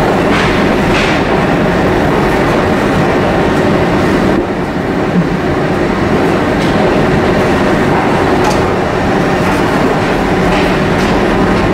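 A train running past on the rails: a loud, steady rolling noise with a few faint clicks.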